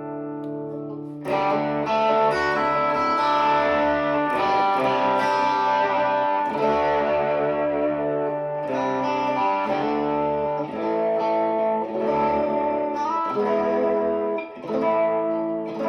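PRS Special Semi-Hollow electric guitar being played. A held chord rings out, then fresh picked notes and chords come in about a second in and keep changing through the passage.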